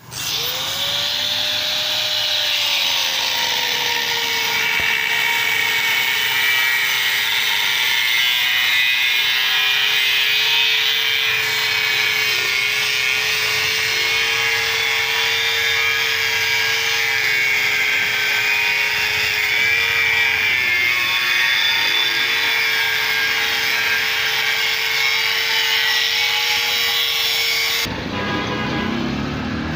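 Angle grinder with a cutting disc slicing through the steel shell of a rotary compressor: a steady motor whine over a harsh cutting hiss. The whine climbs as the grinder spins up, settles lower as the disc bites, dips briefly a few times, and cuts off sharply near the end.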